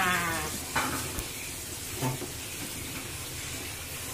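A woman laughing briefly at the start, then a steady hiss from the aluminium kettle steaming grated cassava for putu on a gas ring, with a couple of light knocks from the wooden spoon in the steamer about one and two seconds in.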